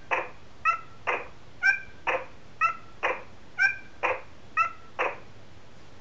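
Electronic sound book's small speaker playing a recorded effect of squelchy footsteps through mud, about one a second. Each step is a short chirp followed by a squish, five in a row, stopping about five seconds in.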